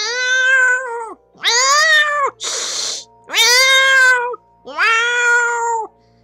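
A woman imitating a cat: four drawn-out human meows, each about a second long and bending up then down in pitch, with a short hiss between the second and third.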